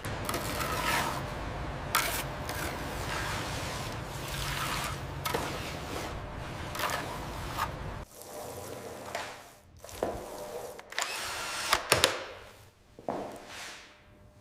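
Construction-site work noise: a steady machine rumble with knocks and clatter. The rumble cuts off suddenly about eight seconds in, leaving scattered knocks and clunks.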